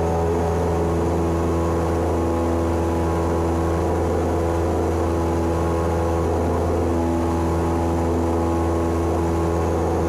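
Cessna 172's piston engine and propeller droning steadily in flight, heard from inside the cabin as a constant low hum with an even stack of higher tones.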